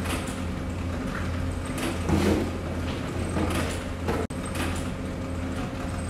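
Handheld invisible-fibre installation tool sliding and scraping along a wall as it lays clear fibre drop cable, in repeated short strokes over a steady low hum.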